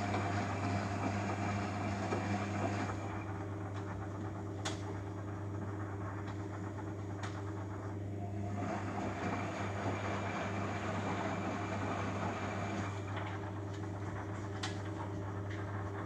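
Beko Eco Care WMA 1510 W washing machine running with a steady low hum. Near the start and again in the middle there are stretches of rushing, hissing water, and a few sharp clicks come in between.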